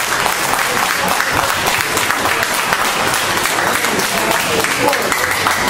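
Audience applauding steadily, with voices mixed in.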